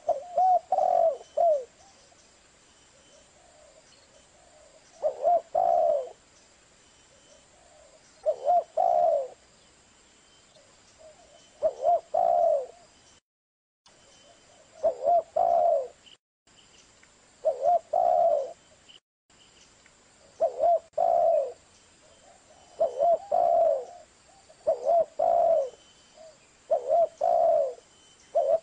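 Spotted dove cooing: a short phrase of a few soft notes repeated about ten times, every two to three seconds.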